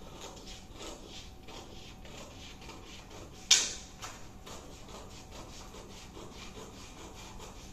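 Scissors cutting through stiff brown pattern paper along a curve: a run of short snips, a few a second, with the paper rustling. About halfway through comes one much louder sharp snap.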